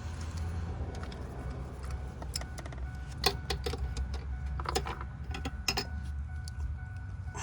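Ratchet wrench clicking in short bursts, a few times, as a spark plug is worked out of a Ford 4.6 L V8's cylinder head, over a steady low hum.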